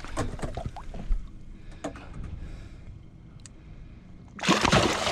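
Water slapping and dripping as a mangrove jack is held by the jaw in the water beside the boat, with small knocks early on and a loud splash about four and a half seconds in as the fish kicks.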